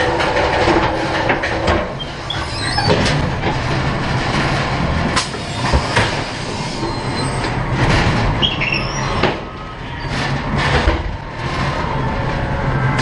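Ghost train ride car rolling along its track, its wheels rumbling and clattering steadily. There are a few sharp knocks and brief high squeals.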